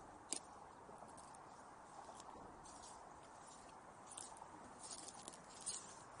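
Faint, irregular crunching footsteps on the exposed bed of a drained reservoir, a few sharp crunches clustered in the second half, over a faint steady hiss.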